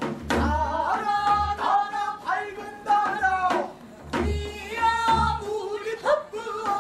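Changgeuk singing in pansori style by a man and a woman, held, bending sung lines over low drum beats.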